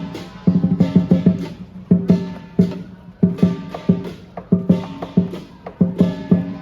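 Lion dance percussion: the big drum struck in quick clusters of beats, with cymbals and a gong ringing on the strokes.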